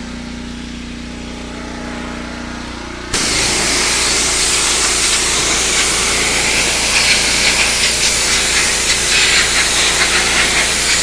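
Pressure washer's engine running steadily, then about three seconds in the spray gun is opened and a loud, continuous hiss of high-pressure water spraying the pond's walls starts over the engine.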